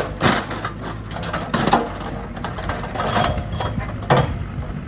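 Excavator engine running steadily while its bucket crunches and bangs into a lawn mower's metal, with about four sharp clangs spread through the few seconds, the sharpest near the end.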